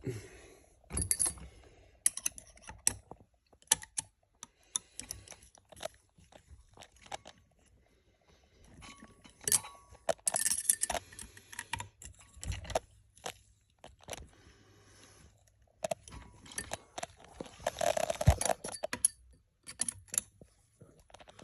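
Scattered small metallic clicks and clinks of hand tools and small hardware being handled as an RC truck's differential case is closed up and fastened, with a few louder clusters of clatter about halfway through and near the end.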